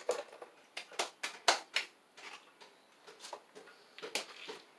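Irregular sharp clicks and rustles of handling, with a quick run of four about a second in and scattered ones after.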